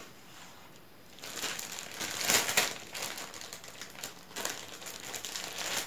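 Thin clear plastic bag crinkling and crackling as hands dig into it to pull out soft roti sheets. It starts about a second in and is loudest around two and a half seconds in.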